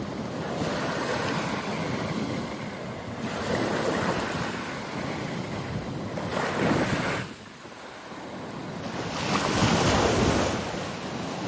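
Wind-driven waves on the Chesapeake Bay breaking and washing in, with wind buffeting the microphone. The surf swells in three big surges, the last the loudest.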